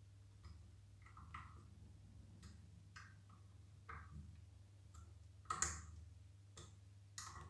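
Faint, scattered clicks and taps of metal as the screws on a pressure washer's metal pump head are turned by hand and the pump is handled, the sharpest click about three quarters of the way through, over a faint low hum.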